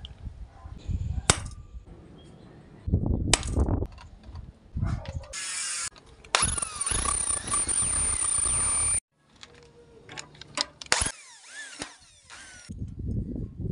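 Electric hand drill boring through a bicycle chainring, running steadily for a few seconds with a high whine and then cutting off abruptly. Around it come short bursts of tool clatter and a sharp tap from marking the holes with a centre punch.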